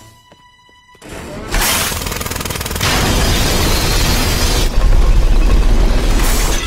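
Cartoon sound effects of Armodrillo's jackhammer arms breaking through a floor. After a brief quieter moment with a few steady tones, a loud crashing, rumbling noise builds from about a second in. It is heaviest and lowest in the second half and stops at the end.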